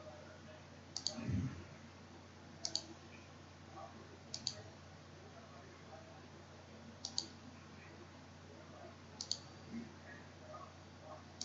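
Computer mouse clicks, each a sharp press-and-release pair, coming about every two seconds as nodes are picked one at a time, over a faint steady hum. A brief low thump sounds about a second in.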